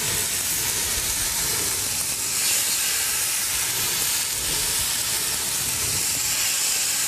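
Chicken tenders in an orange-juice marinade searing in a hot skillet: a steady sizzle and hiss.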